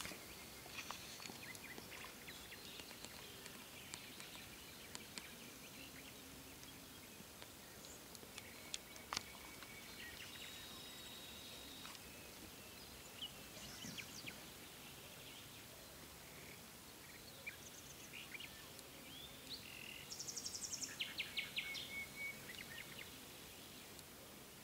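Faint outdoor background hiss with scattered short, high bird chirps and calls. There is a single sharp click about nine seconds in, and a fast, rapidly repeated bird trill near the end.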